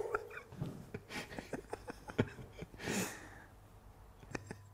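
Quiet chuckling and breaths, with scattered small clicks and handling noises.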